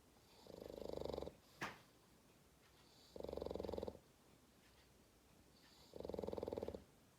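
A sleeping Pekingese dog snoring in slow, even breaths: three fluttering snores, each under a second, about every two and a half seconds. A brief thin squeak follows the first snore.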